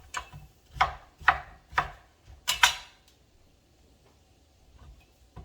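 Knife chopping on a cutting board: about six sharp strokes over the first three seconds, two of them in quick succession, then a pause before the strokes start again near the end.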